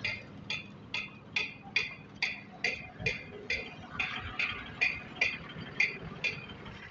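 Short, sharp high clicks repeating about twice a second, a little unevenly, stopping near the end.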